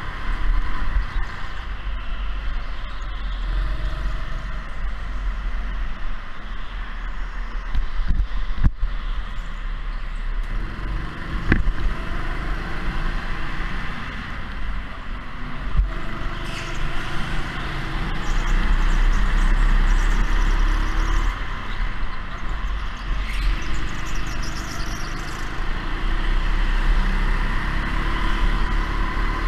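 Go-kart running around the track: a steady low rumble with a hiss of noise, broken by two sharp knocks a few seconds apart near the middle.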